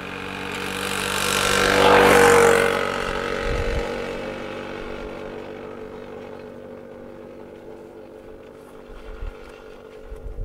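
The engine of a passing motor vehicle: it grows louder to a peak about two seconds in, then slowly fades away.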